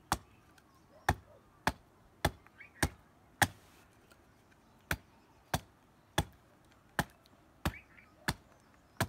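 Hatchet chopping a wooden plank on a block: sharp wood-on-metal strikes about every half to two-thirds of a second, with one short pause about a third of the way through.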